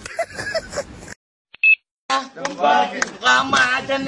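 Faint voices, then a second of silence broken by one short high beep, then loud talking or singing.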